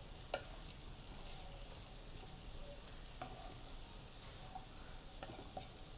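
Rice noodles being stirred in a frying pan with a wooden spatula: a faint sizzle with a few light clicks of the spatula against the pan.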